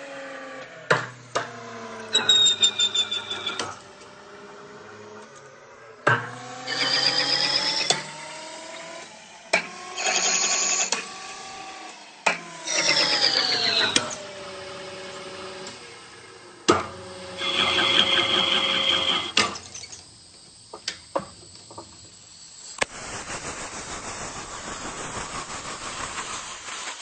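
Metal lathe turning a threaded bolt: the machine's whine glides up and down in pitch as the speed changes, with several cutting passes of a second or two that each bring a high, ringing tone, and sharp clicks in between. The last few seconds turn into a steadier hiss.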